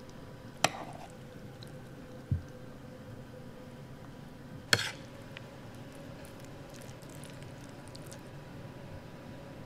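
Two sharp clicks of metal chopsticks or a fork against dishes, about half a second in and near the middle, and a dull low thump in between, over steady restaurant room noise with a faint hum.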